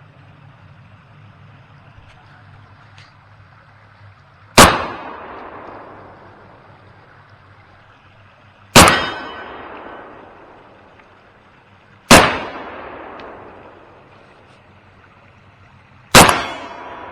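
Four shots from an M&M Industries AK pistol, slowly and evenly spaced about four seconds apart, each with a rolling echo that dies away over about a second. A faint metallic ring follows the last shot.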